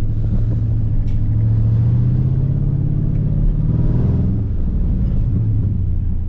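SRT V8 engine running at low cruising speed, heard from inside the cabin with low road rumble. The engine note rises slightly over the first couple of seconds and drops back after about four seconds.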